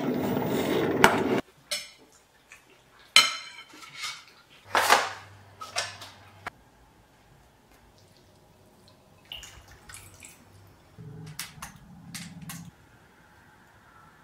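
A Cricut Maker 3 cutting machine running for about the first second and a half, then a run of sharp clinks and taps like utensils on dishes, with softer taps later.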